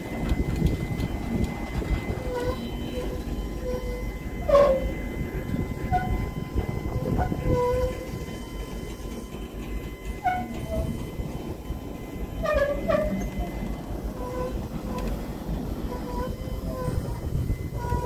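Freight cars rolling past on the rails: a steady rumble of wheels on track, with brief high squeaks from the wheels and a sharp clank about four and a half seconds in.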